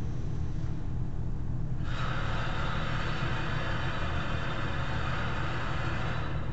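Steady low rumble of indoor shooting-range background noise, with a steady hiss that starts about two seconds in and cuts off suddenly near the end; no shots are fired.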